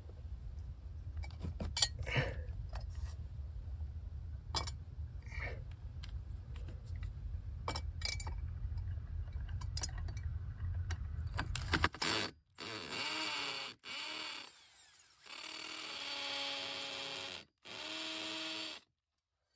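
A few scattered knocks and clicks over a low rumble, then a power drill runs in four short bursts, each a steady motor whine, in the last seven seconds.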